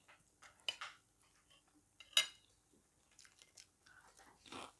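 Close-up eating sounds: chewing a mouthful of pasta with soft mouth clicks, a sharp clink of a metal fork on a ceramic plate about two seconds in, and a crunchy bite into a fried fish cracker near the end.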